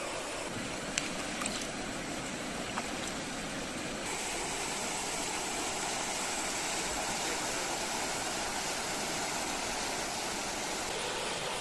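Steady rush of flowing river water, with a few faint clicks in the first three seconds.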